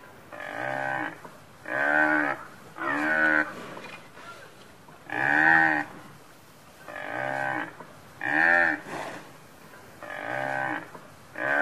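Water buffalo lowing: about eight short moos, each rising then falling in pitch, coming in quick groups of two or three with short pauses between.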